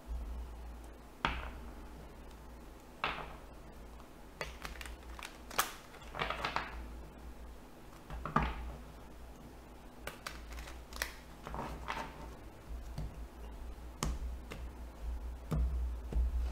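A deck of tarot cards being handled and shuffled by hand on a wooden table: irregular soft card clicks, taps and swishes, a few a second at the busiest, over a steady low hum.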